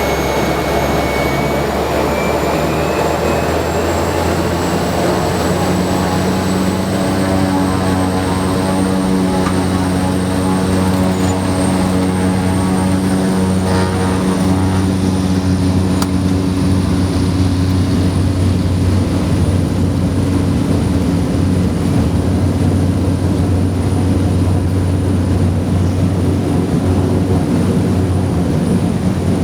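Cessna 208B Grand Caravan's single PT6A turboprop engine and propeller running, with a steady low drone. A high turbine whine rises over the first several seconds and then holds steady as power comes up.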